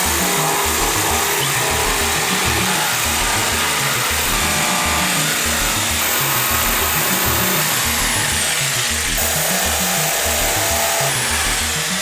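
Electric jigsaw cutting plywood, its motor running steadily under load and stopping near the end. Background music with a steady beat plays underneath.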